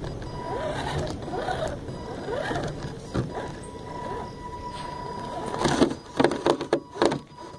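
Axial SCX10 RC crawler driving over dirt, its electric motor and gears giving a thin steady whine. Near the end comes a cluster of sharp knocks and rattles.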